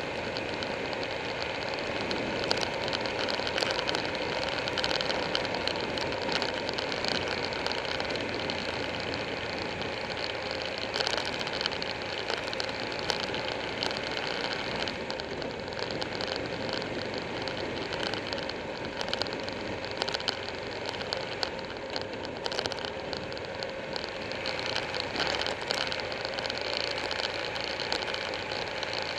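Buell 1125R sport bike's V-twin engine running steadily at road speed, under a heavy rush of wind over the microphone, with frequent small ticks and knocks from the camera mount.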